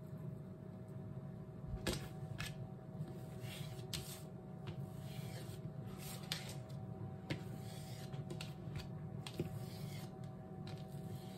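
A chef's knife cutting through canned cinnamon roll dough and tapping on a thin plastic cutting board: several sharp taps at irregular intervals, over a steady low hum.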